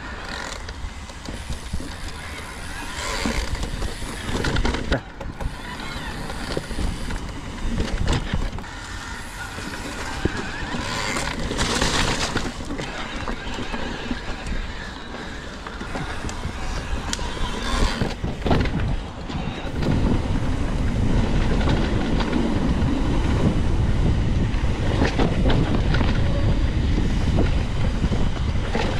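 Mountain bike rolling over a dirt trail: tyre noise and frequent knocks and rattles from the bike over bumps, with wind rumbling on the microphone. The wind rumble grows louder and steadier about two-thirds of the way through.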